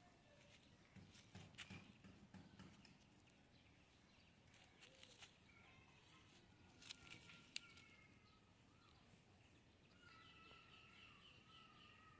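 Near silence: faint birds calling now and then, with a few soft rustles and a single sharp click about seven and a half seconds in.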